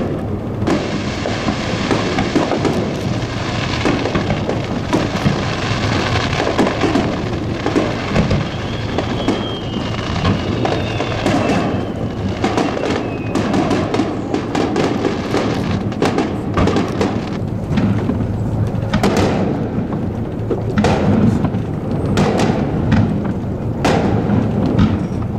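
Aerial fireworks shells bursting one after another over a dense crackle, with a thin falling whistle about a third of the way in.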